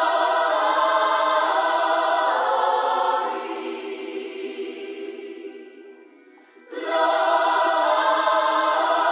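Music with choir-like voices holding sustained chords. It fades down over a few seconds and comes back in abruptly about two-thirds of the way through.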